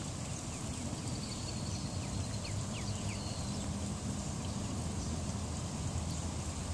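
Steady outdoor background hum with a low drone, likely distant traffic, and a high hiss. A few faint, short high chirps come about two to three seconds in.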